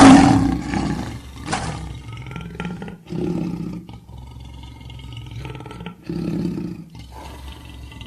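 Custom monster roar sound effect for the Hodag: a loud roar at the start, followed by several shorter, lower growling calls every second or two.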